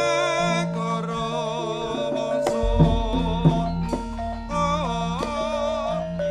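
Javanese gamelan music: sustained metallophone notes under a wavering sung vocal line, with a couple of sharp drum strokes about three seconds in, and a deep low tone coming in just before them.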